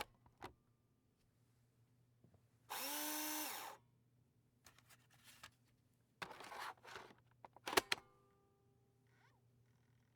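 Computer disk drive taking a disk: a couple of clicks, then about three seconds in the drive motor spins up, holds for about a second and winds down. Further whirring and a few sharp clicks follow about six to eight seconds in, over a faint steady hum.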